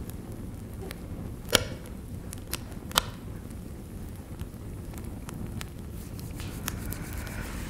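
Forest soundscape: scattered sharp cracks and snaps over a steady low rumble, the loudest about a second and a half in and another about a second later.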